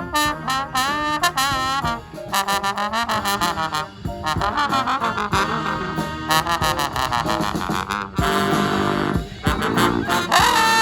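Live brass band playing: trombones, trumpets and saxophones over a steady beat of percussion hits.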